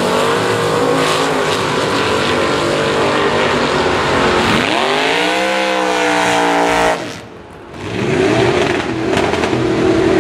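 Gasser drag cars' engines running hard on the drag strip. The pitch sweeps up sharply about four and a half seconds in as a car launches, then holds. The sound drops away briefly around seven seconds in and rises again.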